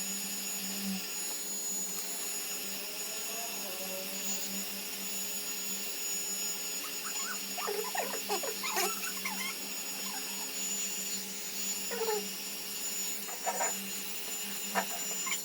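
Steady hum of a small electric motor, with faint voices in the background around the middle and near the end.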